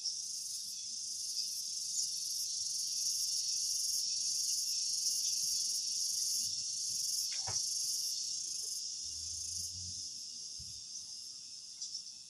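Insects, likely crickets, chirring in a steady high-pitched drone, with a brief sharp knock about seven and a half seconds in.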